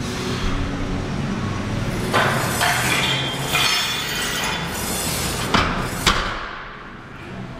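Barbell and iron weight plates clanking: a handful of sharp metallic knocks, the two loudest about five and a half and six seconds in, over a steady low hum.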